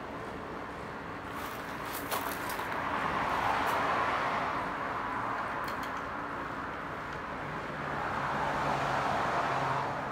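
Cars passing: a broad hiss that swells and fades twice, about three to five seconds in and again near the end, with a low engine hum under the second pass. A few light clicks around two seconds in and again near six seconds, as the saddle clamp is handled.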